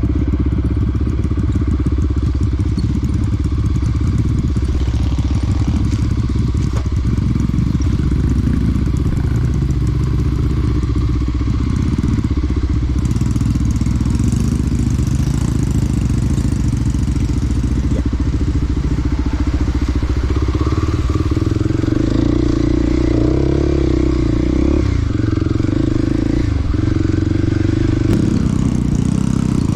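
Small dirt bike's engine running steadily, its note shifting about two-thirds of the way through.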